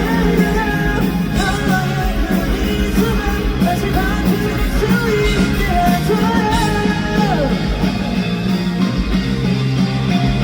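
Live pop-rock band playing a song, with a male lead vocal singing the melody over drums, bass and guitar.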